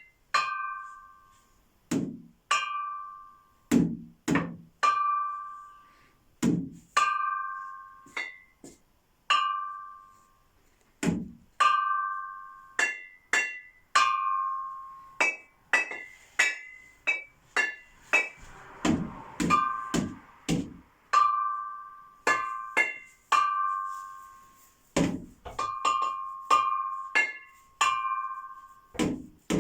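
Repeated sharp strikes at an uneven pace, each ringing briefly with a clear tone, like something hard being hit. Some strikes also carry a dull thump.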